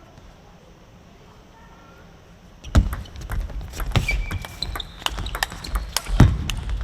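Quiet room tone for about two and a half seconds, then a table tennis rally: quick, irregular ball strikes on bats and table with thumps and a few shoe squeaks on the court floor.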